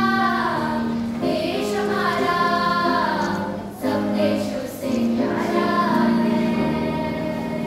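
Children's choir singing, sustained sung phrases with brief breaks between them.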